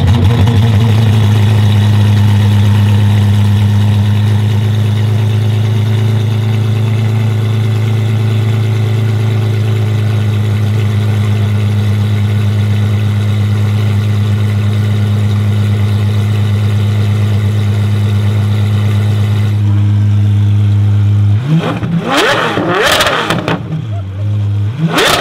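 Apollo Intensa Emozione's 6.3-litre naturally aspirated V12 idling steadily after start-up, then blipped in a few quick revs near the end.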